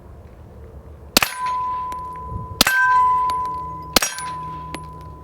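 Three pistol shots from a suppressed Glock 19, about a second and a half apart. Each is followed by the clear, fading ring of a steel target plate being hit.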